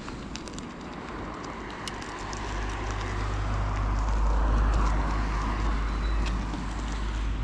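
E-bike riding along a forest track: tyres rolling with scattered small clicks, under a deep wind rumble on the microphone that swells to its loudest around the middle.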